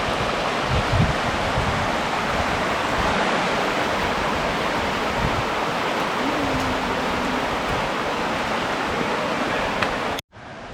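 River rapids rushing: a steady, even wash of fast-flowing water that cuts off suddenly near the end.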